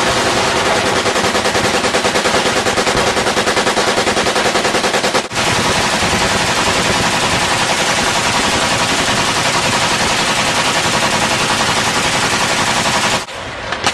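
Machine gun firing on full automatic in long, rapid bursts. There is a brief break about five seconds in, and the firing stops shortly before the end.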